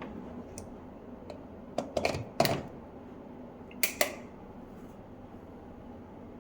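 Plastic clicks and knocks of a power plug being handled at a wall socket: a couple of light clicks, then two short bursts of clattering knocks about two seconds apart.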